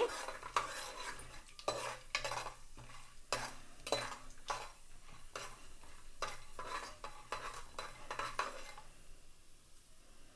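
Metal spoon stirring and scraping in a pan of hot oil with tempering seeds frying, giving irregular clinks over a light sizzle. The stirring stops about nine seconds in, leaving a faint hiss.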